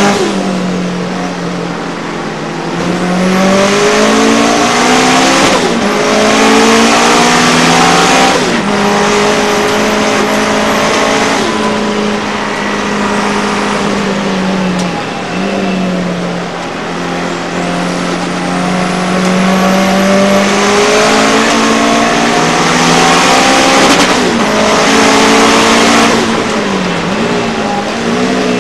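Subaru Impreza race car's flat-four engine heard from inside the cockpit, at racing speed. The pitch climbs steadily and drops sharply at each of several gear changes, with a wash of road and wind noise over it.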